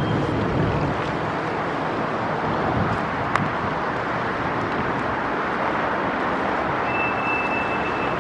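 Steady city traffic noise, an even rush of passing vehicles, with no siren sounding yet. A single click about three seconds in and a short high tone near the end.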